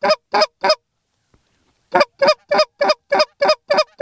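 Canada goose honks, very evenly spaced, most likely a hunter blowing a goose call to bring birds in to the decoys: three honks, a pause of about a second, then a fast steady run of about three honks a second.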